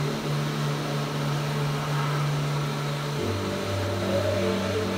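Media blast cabinet hissing steadily as a steel bracket is blasted to strip its shipping paint, under sustained background music notes that change about three seconds in.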